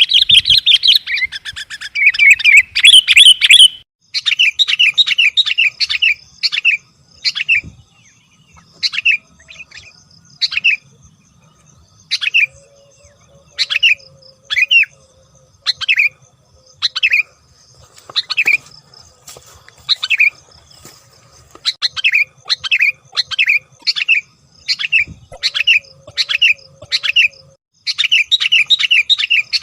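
Sooty-headed bulbul calling: a fast, dense run of chattering notes at the start, then short clear chirps repeated roughly once a second, sometimes in quick runs of three or four.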